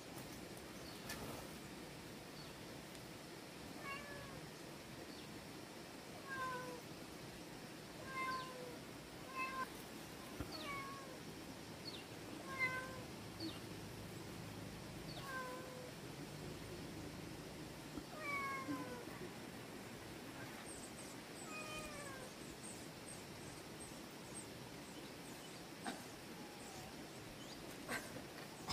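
An animal calling over and over: short calls that fall in pitch, about one a second, stopping a few seconds before the end.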